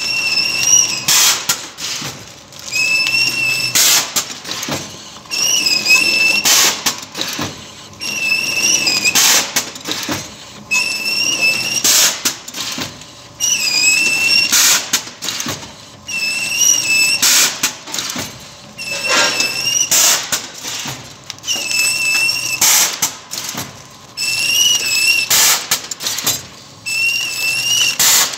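Automatic vertical form-fill-seal powder packing machine running through its bag-making, filling, sealing and cutting cycle, about once every 2.7 seconds. Each cycle brings a wavering high whine together with short hissing bursts and clicks.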